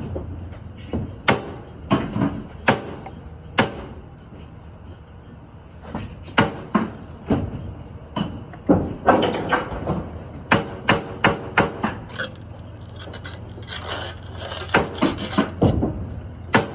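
Steel bricklayer's trowel tapping and scraping on fresh-laid brick and mortar: a run of sharp taps, some in quick clusters, with stretches of scraping in between, as the bricks are tapped down to level.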